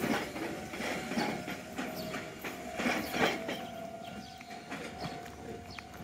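Kōnan Railway electric train running on the line: a steady motor whine with wheels clicking and knocking over the rail joints.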